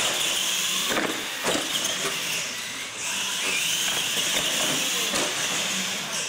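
Two radio-controlled monster trucks racing across a concrete floor: a steady high whine from their electric motors and gearboxes, with two sharp knocks between one and two seconds in.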